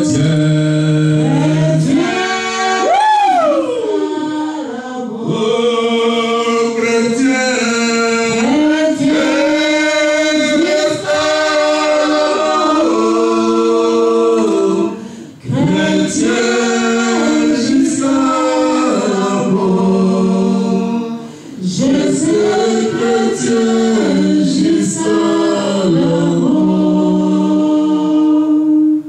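Voices singing a worship song together without instruments, in long held notes. A voice slides up and back down about three seconds in, and the singing briefly drops off twice, near the middle and about two-thirds of the way through.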